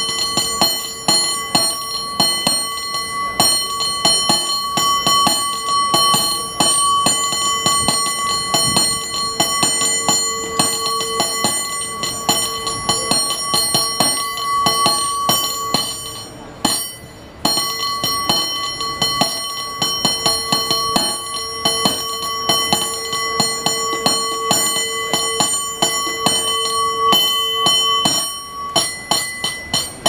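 San Francisco cable car bell, rung by hand from a cord pulled overhead, played in fast rhythmic patterns of many strokes a second with a steady ring underneath. It stops briefly about sixteen seconds in, then resumes.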